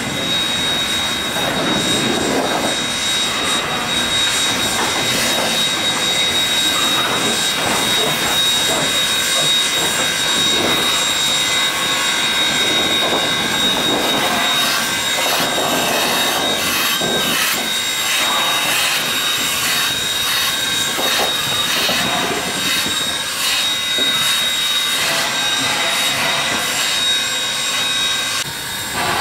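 Ex-South Australian Railways Rx-class 4-6-0 steam locomotive RX207 rolling past, hissing steam, with a steady high whine and irregular knocks throughout.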